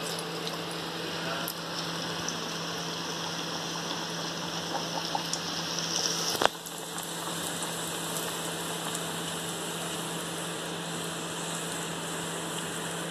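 Donut dough deep-frying in hot oil in a kadai: a steady bubbling sizzle.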